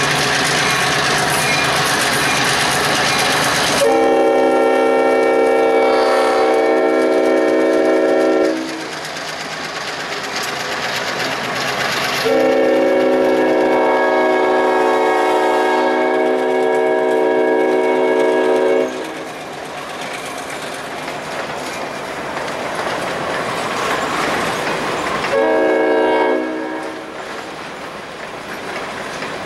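Diesel switcher locomotive's multi-note horn sounding two long blasts and one short one, the pattern that opens a grade-crossing signal. Under it runs the steady noise of the train rolling on the rails.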